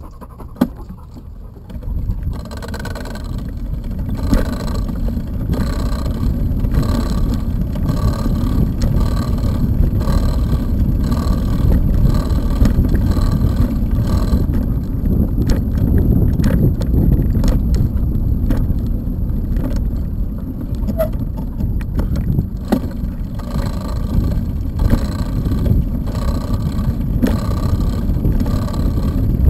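Bicycle tires rolling over a wooden plank boardwalk: a steady low rumble from the boards mixed with wind on the microphone, growing louder over the first few seconds. Light ticks recur at a regular pace, roughly every half second or so, over the rumble.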